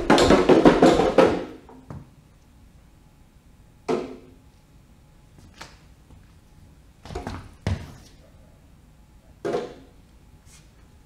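A small toy drum struck with a stick. It opens with a loud, rapid clatter of beats lasting about two seconds, then gives single beats every one to two seconds.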